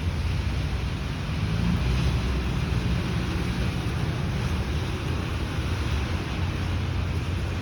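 Steady hiss of heavy rain with wind on the microphone, over a low, steady engine hum from nearby traffic.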